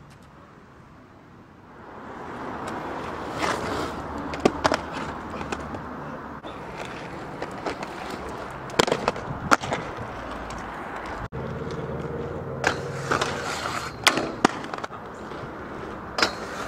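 Inline skate wheels rolling on rough asphalt, a steady rumble that starts about two seconds in, broken by many sharp clacks and knocks of skates landing and striking hard edges and a metal rail.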